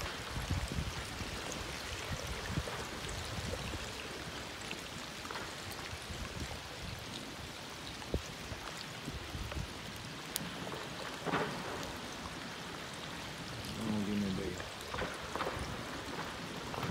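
Tidewater glacier ice popping: sharp single cracks a couple of seconds apart. They sound over a steady rain-like hiss of water.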